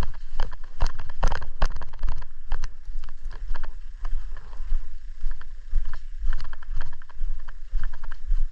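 Footsteps and kit rattling as a player moves on foot, irregular knocks and clicks over a steady low rumble of wind and handling on a body-worn camera microphone.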